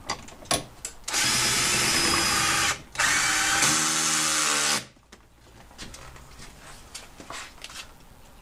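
Cordless drill-driver driving a door-handle bolt home in a door panel: two bursts of about a second and a half to two seconds with a short pause between, the second cutting off abruptly. A few light clicks come just before.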